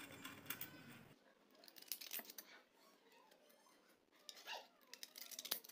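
Scissors cutting through a piece of aluminium foil: a few faint snips and foil crinkles at irregular intervals.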